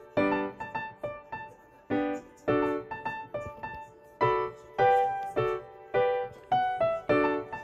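Background piano music: a light tune of short struck notes and chords, each dying away before the next.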